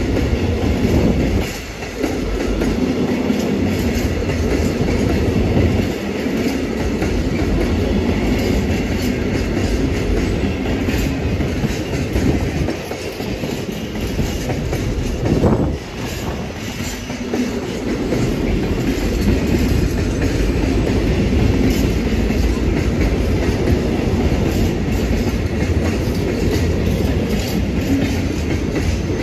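Container freight train of flat wagons rolling past, its steel wheels running over the rails in a continuous loud rumble.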